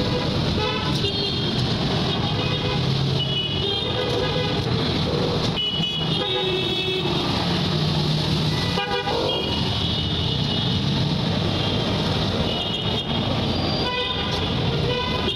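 Busy street traffic: vehicle horns tooting briefly again and again over a steady din of engines and crowd noise.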